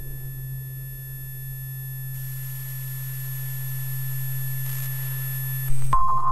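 Electric fish discharges picked up by antennas and played as electronic tones through speakers: a steady low hum with faint thin high tones over it. Near the end a louder, higher steady tone cuts in suddenly.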